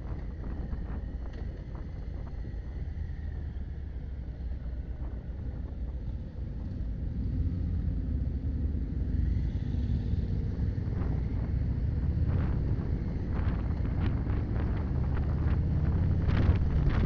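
Motorcycle engine running at road speed under wind rumble on the microphone; the sound grows louder from about seven seconds in, with gusts of wind buffeting near the end.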